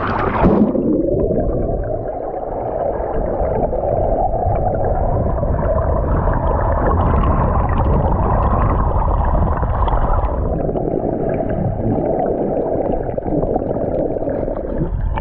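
A camera plunging into the water with a brief splash and a falling swoosh, then the steady, muffled rushing and gurgling of water heard with the camera underwater.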